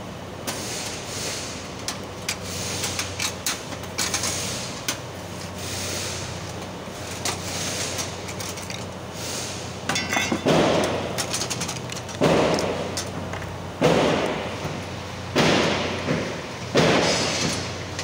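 Hand tools working on a hybrid battery pack's metal casing and brackets: scattered metal clicks and taps, then from about ten seconds in five loud strokes about a second and a half apart.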